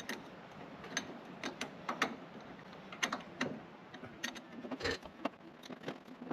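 Wrench working a carburetor mounting nut off its stud: irregular sharp metallic clicks, a few a second.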